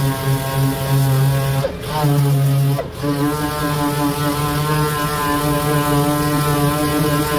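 Pneumatic random-orbital sander running against a car door panel, sanding out a scratch: a steady whine with air hiss. It lets off briefly twice, about one and a half and three seconds in, the pitch sliding as it slows and spins back up.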